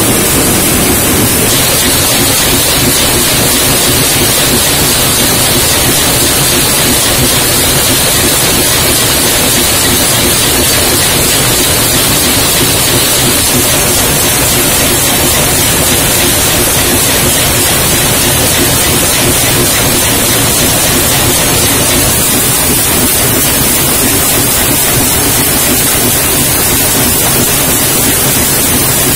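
Metal can-making machinery running: a loud, steady, even din with no clear rhythm, shifting slightly in tone about a second and a half in and again around twenty seconds in.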